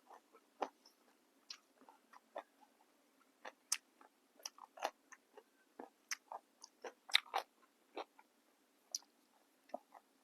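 A person chewing and biting into crisp fresh raw vegetables with a grilled-beef salad: irregular crunchy snaps, a couple each second.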